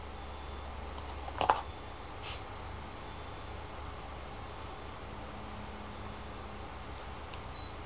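NOVA DVR XP lathe's control electronics beeping as it powers up: five short high beeps about every one and a half seconds, a click about one and a half seconds in, and a quicker run of stepped beeps near the end.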